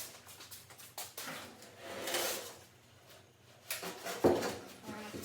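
Scattered light knocks and clicks of parts being handled, with a scraping stretch about two seconds in and one sharp knock about four seconds in.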